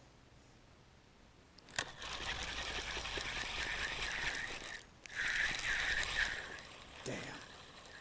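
Spinning reel being cranked to retrieve line, a steady whirring rattle that starts just after a single sharp click about two seconds in. It breaks off briefly about five seconds in, then resumes louder with about four regular pulses a second, one per turn of the handle, before easing off.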